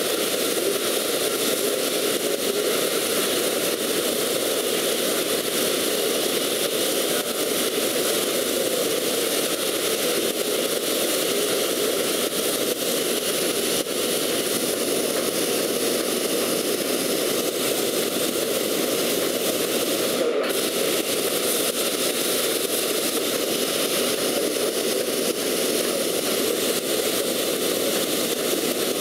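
Plasma cutting torch on a portable CNC cutting machine giving a steady, even hiss and rush of arc and air, broken briefly about twenty seconds in.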